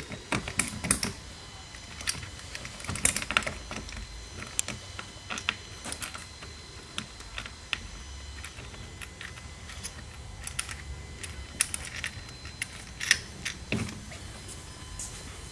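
Light, irregular metallic clicks and taps of seat-back mounting hardware, a bolt being started by hand into the seat-back bracket, with a duller thump near the end.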